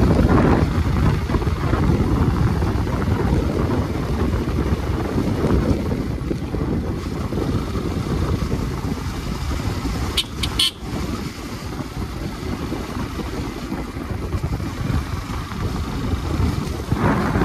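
Motorcycle on the move, its engine and the wind over the microphone making a steady low rumble. A brief cluster of sharp clicks comes about ten seconds in.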